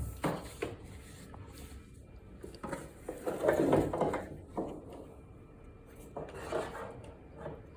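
Handling noises: light knocks and rubbing, with two longer scraping rubs in the middle and near the end, as a drywall sander is moved and handled without its motor running.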